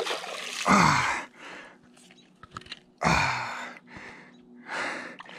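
A man breathing hard and out of breath from fighting a large salmon on a rod: two loud sighing exhalations, about a second in and about three seconds in, and a fainter one near the end.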